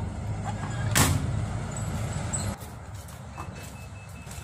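Washing machine motor turning the drum with a low rumble and a clunk about a second in, then stopping after a couple of seconds, followed by a faint repeated beep. It is the machine's brief turn before it stops and flags fault H21.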